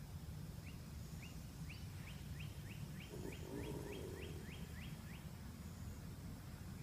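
An alligator's low, rumbling, purr-like call about three seconds in, over a quickening run of about a dozen short high chirps.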